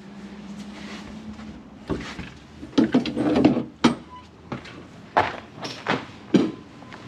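Handling noises from a canvas truck-bed tent and its poles: a string of irregular bumps, knocks and rustles, starting about two seconds in.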